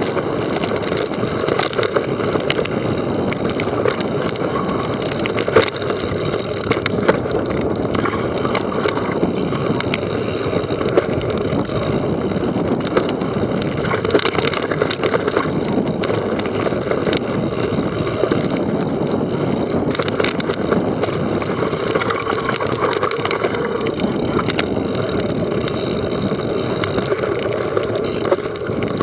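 Mountain bike running fast down a rough trail: a steady rush of tyre and wind noise on the camera microphone, with frequent clicks and rattles from the bike over the ground.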